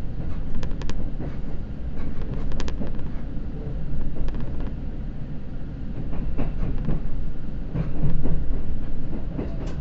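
Seibu Red Arrow limited express heard from inside the passenger cabin: a steady low rumble of the train running slowly into the terminal, with sharp wheel clicks over rail joints or points about a second in and again near 3 s.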